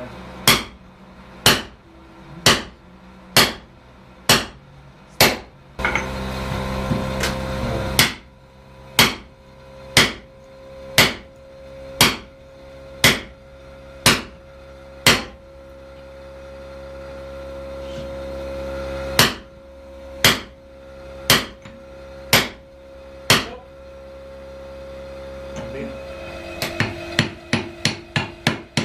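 Hammer blows on steel at an anvil, forging a froe, about one blow a second with a pause of a few seconds in the middle. Near the end come quicker, lighter blows, about four a second. A steady hum runs under the blows, with a short rushing noise about six seconds in.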